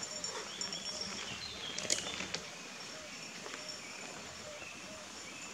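Woodland birdsong, with bicycle tyres crunching on gravel as a loaded bikepacking bike rides past, and one sharp click about two seconds in.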